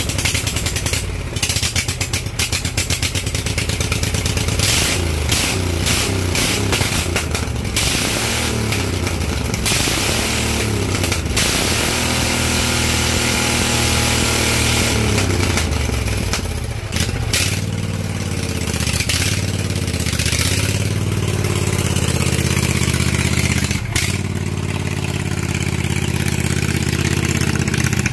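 A lawn tractor's 25-horsepower Kohler engine running after starting on choke and gas. Its speed rises and falls through the first half, then settles to a steadier run, with a couple of sharp clicks.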